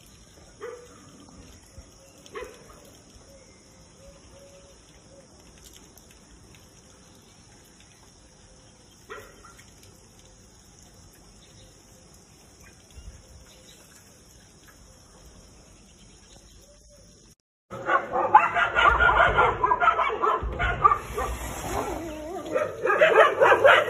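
Dog yelping a few times and whining faintly, then, after a short break about two-thirds of the way in, loud, dense barking and yelping that carries on to the end.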